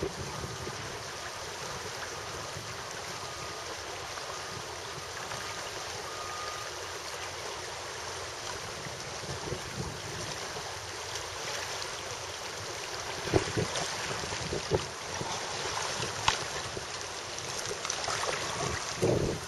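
Steady rush of river water and wind on the microphone as kayaks paddle past, with a few short sharp clicks in the second half.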